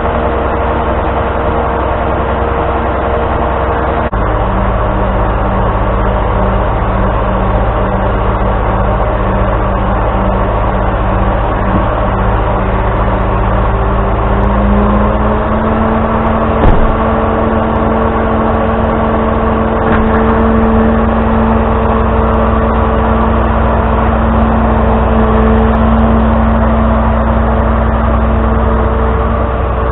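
Tow truck's engine running steadily, its speed shifting about four seconds in and rising around halfway, with a single knock shortly after.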